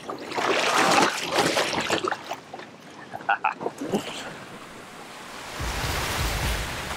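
Water splashing and sloshing as a snapper is released over the side of a boat. Music with a low pulsing beat comes in near the end.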